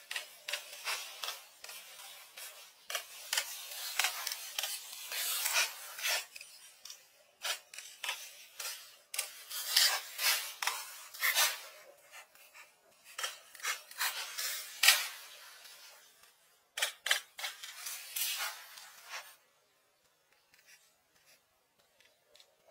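Dried palm fronds being handled and bundled for thatch, making irregular dry rustling, scraping and crackling that stops about nineteen seconds in.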